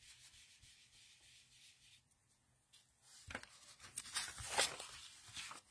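Paper cardstock sliding and rubbing by hand on a craft mat: a few scratchy rubbing strokes starting about three seconds in, after a faint, quiet stretch.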